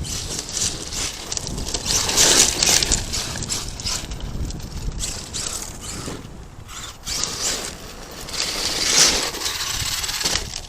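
Arrma Kraton 8S RC monster truck driving over loose construction-site dirt, its drivetrain whirring and tyres scattering gravel, louder in surges about two and nine seconds in.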